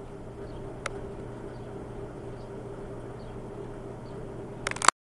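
Steady outdoor background hum and rumble with one sharp click about a second in, then a quick cluster of clicks just before the sound cuts off abruptly near the end.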